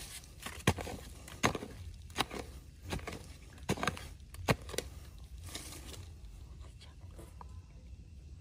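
A hoe chopping into dry, crumbly soil, about seven sharp strikes over the first five seconds, followed by quieter scraping of loose earth by hand.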